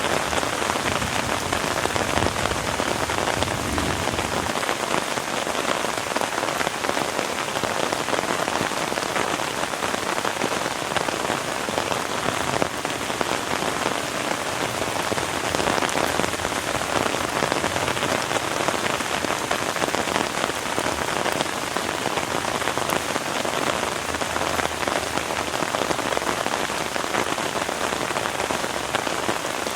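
Heavy rain falling steadily: a dense, even patter of drops with no let-up.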